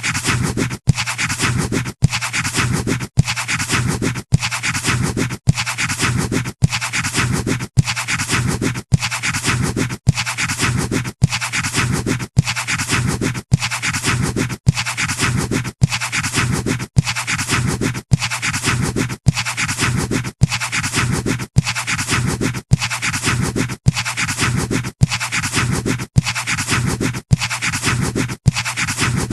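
Pencil scratching on paper, a short recording looped over and over with a brief cut about once a second.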